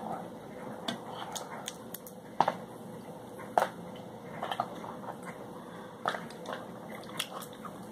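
Snow crab leg shells being cracked and the meat picked out by hand: a scatter of short, sharp cracks and clicks, irregularly spaced about a second or so apart.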